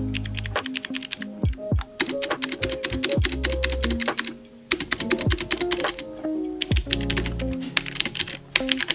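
Rapid typing on an AmazonBasics mechanical keyboard with clicky blue switches: a dense, irregular run of key clicks, with a brief pause about halfway through. Background music plays underneath.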